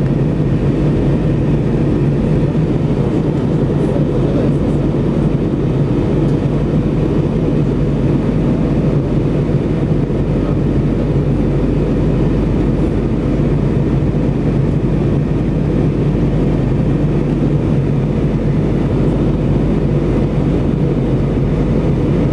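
Steady drone of engines and rushing air inside the cabin of an Airbus A320-family airliner climbing after take-off, with a constant low hum under it.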